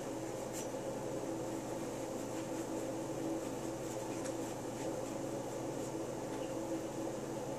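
A steady hum with a few faint, short rubbing sounds of a blue paper shop towel wiping a rifle part.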